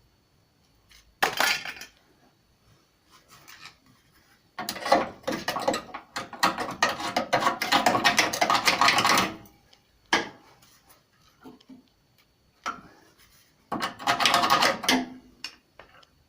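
Hand-tool work on car body metal: bursts of metallic scraping and clattering, a short one, a long one of about five seconds in the middle, and another near the end.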